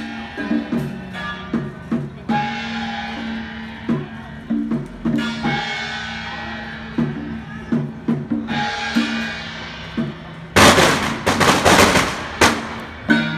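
Taiwanese temple procession music: regular drum beats under long held wind-instrument notes, then a loud, crashing burst lasting about two seconds near the end.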